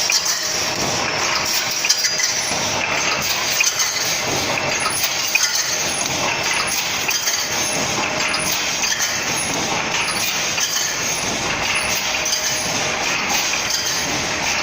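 Wire mesh welding machine running, a steady clatter of many metallic clinks and knocks.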